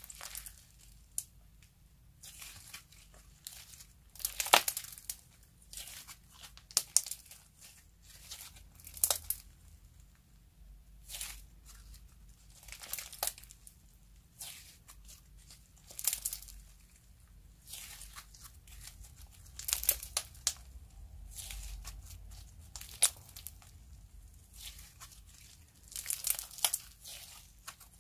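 Sequin-filled slime being stretched, folded and squeezed by hand: irregular sticky crackles and pops every second or two.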